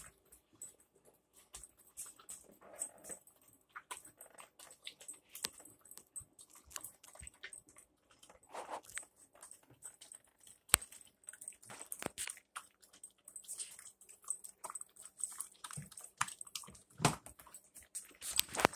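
Mastiff puppy eating dry kibble from a stainless steel bowl: irregular crunching and small clicks of kibble against the metal, with one sharper click about halfway through.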